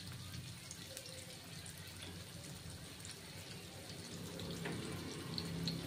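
Semolina-coated rohu fish slices shallow-frying in oil on a flat tawa over a medium gas flame: a faint, steady sizzle with light crackles, growing a little louder in the second half.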